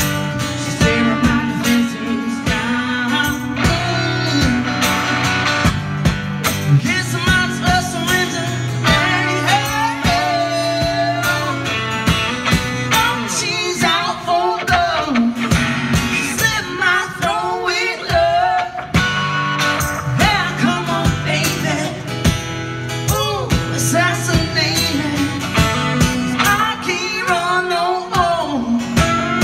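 Live band playing a blues-rock song: strummed acoustic guitar and electric guitar, with singing over them.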